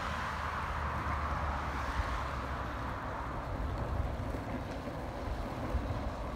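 Wheels rolling fast over a rough asphalt path: a steady, even rumble with a few faint ticks.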